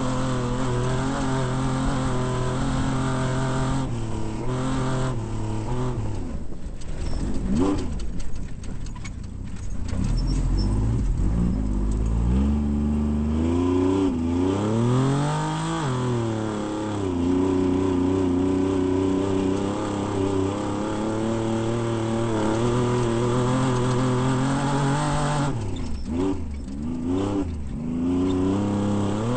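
Off-road race vehicle's engine running hard, mostly at steady revs. The revs drop and climb again a few times: briefly about a quarter of the way in, in a longer low stretch followed by a rising then falling sweep around the middle, and once more near the end.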